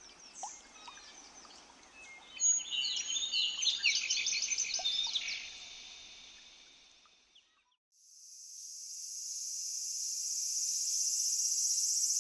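Birds chirping and singing in quick, high notes for about the first six seconds. Then, after a short pause, a steady high-pitched cicada buzz fades in and holds.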